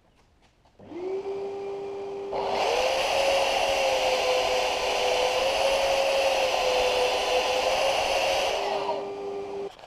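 Electric belt sander, mounted upside down on the bench, starts up about a second in and runs with a steady whine. From about two and a half seconds a plywood breast hook is pressed onto the running belt, adding a loud rough sanding noise. Near the end the piece comes off, the motor runs free for a moment and then stops.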